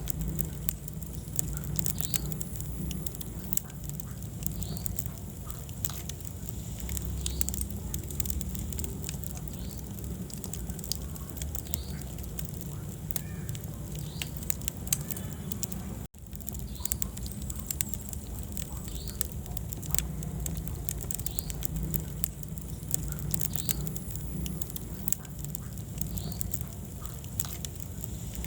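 Wood fire crackling in a fireplace: frequent sharp pops and snaps over a steady low rumble of the flames. The sound drops out for an instant about sixteen seconds in.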